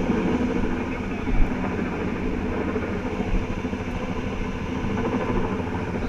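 Helicopter rotor noise, steady, with a fast low pulsing.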